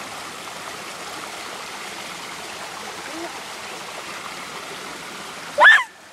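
Creek water running steadily over rocks, a constant rushing. Near the end a person lets out one short, high-pitched cry that falls in pitch.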